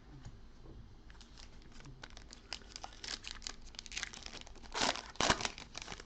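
Trading-card pack wrapper being torn open and crinkled by hand, a run of small crackles with two louder crinkling bursts about five seconds in.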